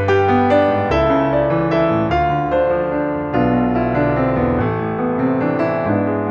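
Background piano music: a gentle melody of struck notes over held bass notes.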